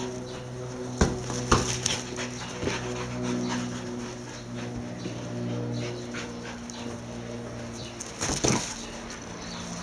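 Kelpie dogs at play, with dog sounds such as panting, and a few short sharp sounds about a second in and again, loudest, near the end. A steady low hum runs underneath.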